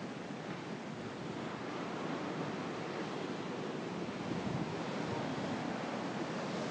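Rough sea surf breaking and washing along the shore, a steady rushing roar with wind buffeting the microphone, growing slightly louder toward the end.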